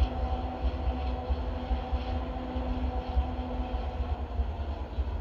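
Freight train headed by an EMD SD40 diesel locomotive working up a grade as it pulls away, heard as a steady low rumble with the engine's drone.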